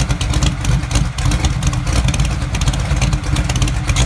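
V8 engine of a custom trike running at a steady idle, an even, fast train of exhaust pulses with no change in speed.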